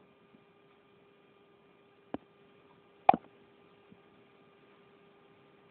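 Two sharp clicks about a second apart, the second louder, from paging back through presentation slides on a computer. A faint steady electrical hum runs underneath.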